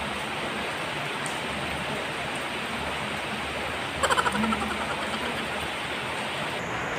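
Steady rain falling, an even hiss, with a brief louder burst of sound about four seconds in.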